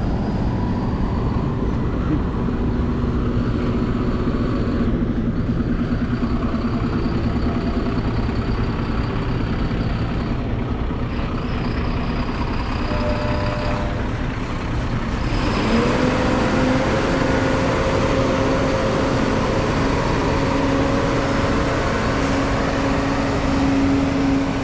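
JCB Fastrac tractor's diesel engine running steadily with a Krone loader wagon hitched; about 15 seconds in the engine note rises and grows louder as the tractor pulls away.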